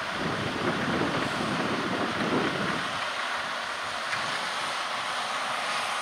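John Deere 6215R tractor's six-cylinder engine running steadily under load while driving a power harrow drill combination through the soil. Wind buffets the microphone during the first half.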